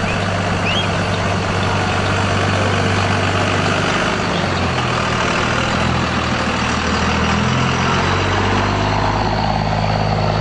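A large vehicle's engine running close by at low speed, its pitch shifting a few seconds in, over a steady rushing noise.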